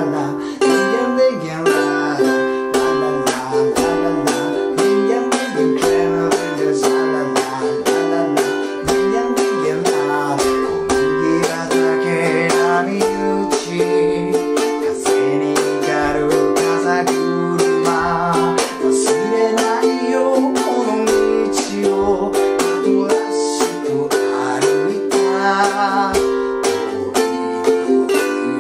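Thin-bodied G-LABO ukulele strummed in a driving eight-beat pattern with percussive muted chops, moving through simple chords such as C, G7, Csus4 and F, with a man singing the melody along with it.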